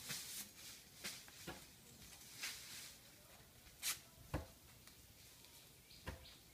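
Dry broom strands and plastic ribbon rustling and swishing as they are handled, wrapped and pulled tight by hand, with a sharper swish about four seconds in and two dull knocks.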